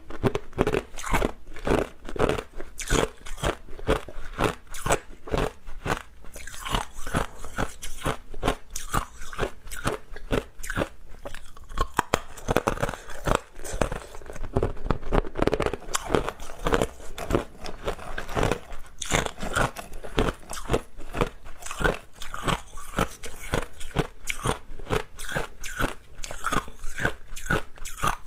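Hard clear ice being bitten and chewed close to the microphone: a continuous run of loud, sharp crunches and cracks as the cubes break between the teeth.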